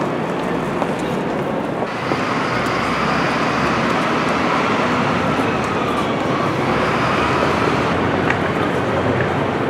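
Busy city street noise with traffic. From about two seconds in, a higher whine rises and falls for several seconds over the steady din.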